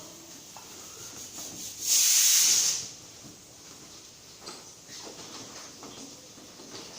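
A short, loud hiss of pressurised gas lasting just under a second, about two seconds in, typical of gas being released or blown through a refrigerator's refrigerant line. Faint clicks and handling noises around it.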